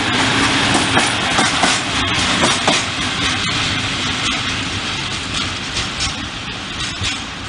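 A train passing, its wheels clicking over the rail joints, the sound slowly fading as it moves away.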